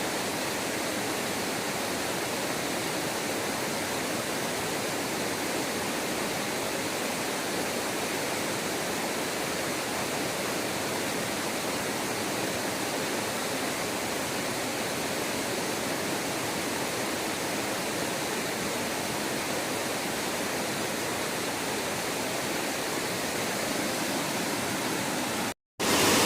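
Waterfall: a steady, even rush of falling water, cut off briefly near the end.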